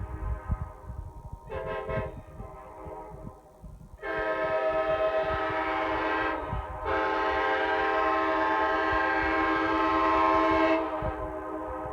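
Nathan K5LA five-chime air horn blowing its chord: a short toot about a second and a half in, then a long blast from about four seconds in, briefly dipping near six and a half seconds and sounding on until near the end.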